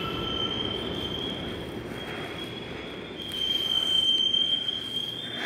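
Busan Metro Line 1 subway train in the tunnel: a low rumble with a steady high-pitched squeal or whine that grows louder about three seconds in.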